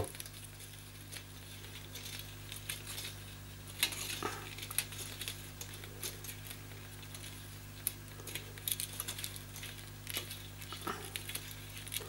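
Faint small clicks and scratches of tweezers handling the thin coiled resistance wire of a hair dryer heating element, twisting two broken wire ends together, over a steady low hum.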